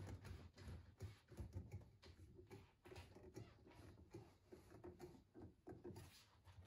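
Near silence, with faint, irregular small clicks and rubs as the miter saw's hold-down clamp knob is screwed down onto a board.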